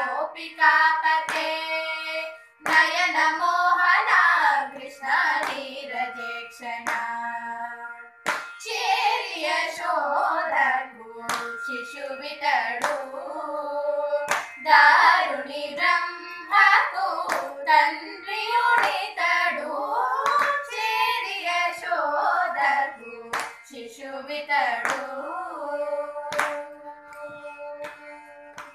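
Three girls singing a Carnatic devotional song together, keeping the tala with hand claps and slaps on their laps that cut sharply through the melody.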